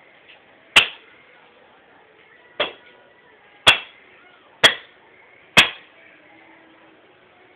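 Wood being chopped by hand: five sharp blows of a blade biting into wood, the first alone and the last four about a second apart.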